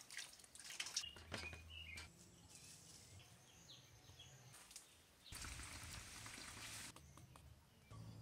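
Faint outdoor sounds: a few short bird chirps, and a brief rush of water splashing.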